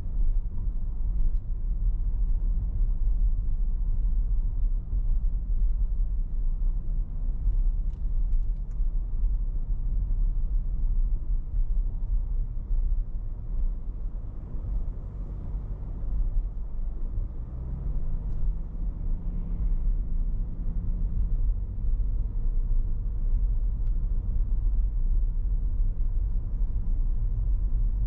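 Car driving slowly: a steady low rumble of engine and road noise, with the engine note rising a little past the middle and holding for a few seconds.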